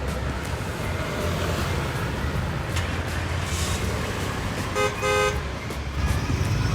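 Steady low rumble of road traffic, with a vehicle horn honking twice about five seconds in: a short toot, then a slightly longer one.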